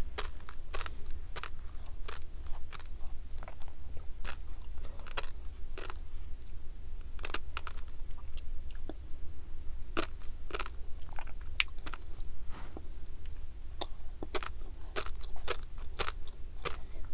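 Close-miked chewing of tobiko (flying fish roe), the small eggs popping as sharp, irregular clicks, over a steady low hum.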